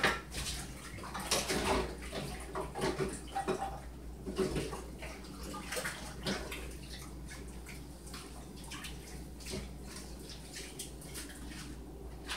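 Water from a kitchen tap splashing unevenly in a sink, with a sharp knock right at the start and a few more knocks and clatters in the first few seconds.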